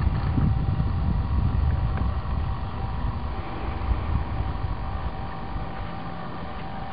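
Boat motor running with a steady hum, under wind rumbling on the microphone that eases off over the first few seconds.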